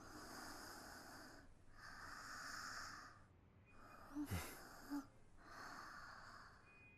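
Faint, slow breathing of a sleeping person: four soft breaths, each about a second long. A brief falling swish comes about four seconds in.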